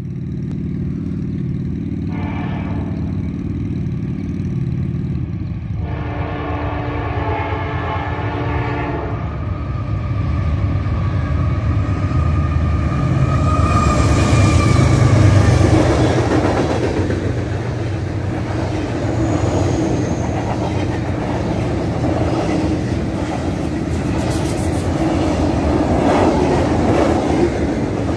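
A Norfolk Southern freight train passing close by. The diesel locomotives sound their horn twice, a short blast about two seconds in and a longer one lasting about three seconds soon after, over a steady low engine rumble that is loudest as the locomotives go by. Then the double-stack intermodal cars follow with rolling wheel clatter.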